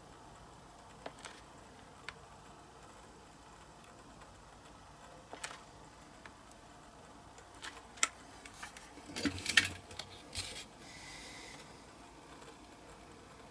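Small clicks and taps from handling tools and a silicone mould on a workbench: a few single clicks, then a quick cluster of louder clicks and knocks about eight to ten seconds in, followed by a brief hiss.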